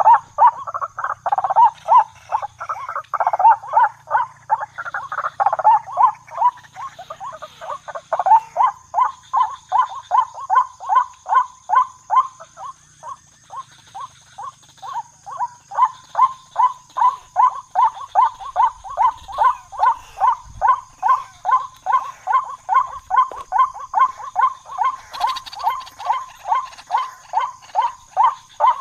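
Waterhen calling: a long, unbroken run of short notes repeated about two to three times a second, loudest and most crowded in the first few seconds.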